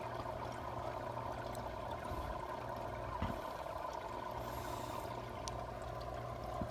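Aquarium water trickling steadily over a low steady hum.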